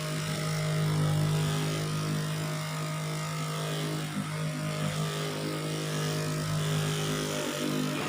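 Handheld dolphin-shaped electric vibrating massager running with a steady buzzing hum, used for reflexology massage.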